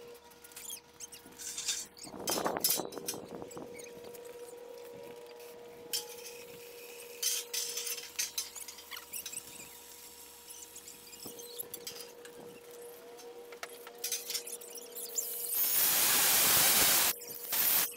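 Small clinks and taps of metal on a galvanized steel frame over a faint steady hum, with a brief rougher burst about two seconds in. Near the end, about a second and a half of loud hissing noise, the loudest sound here.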